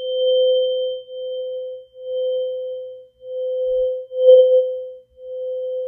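Tuning fork ringing after a hammer strike: one clear, pure mid-pitched tone with a faint high overtone. The tone sounds in pulses about a second long with brief silent gaps between them, and one pulse a little after the middle is louder.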